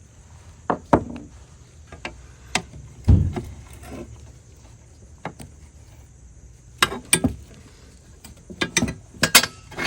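Scattered knocks and clinks of hand tools and metal parts on a Corvette front spindle assembly as a stuck bolt is worked loose, with one heavier thump about three seconds in and a quicker run of knocks near the end.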